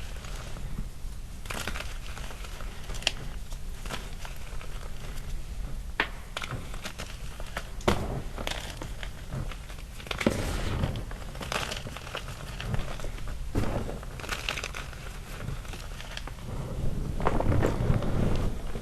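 Gym chalk powder and small chalk chunks being crushed and played in, with scattered sharp snaps of chunks breaking over a soft crackle. The crunching gets louder and denser near the end.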